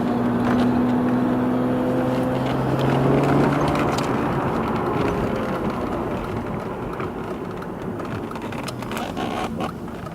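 BMW M3 being driven, its engine note rising slightly under throttle for the first few seconds and then easing off, over steady road noise. The car is being driven to reproduce a grumble from the rear end under load, which the owner hopes is the drive shaft rubbing on the sway bar rather than a failing diff.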